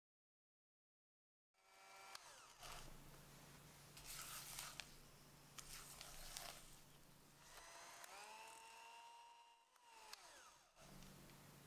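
Electric hand mixer running, its beaters creaming butter and sugar in a glass bowl. It starts after a moment of silence, stops for a few seconds about two-thirds of the way in while a spatula works against the glass, and starts again near the end.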